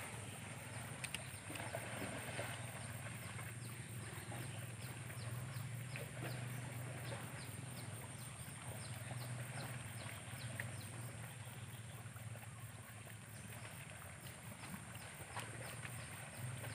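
A group of wild boars feeding in grass: a low, uneven grunting and rustling with louder stretches, over a steady high-pitched buzz of insects.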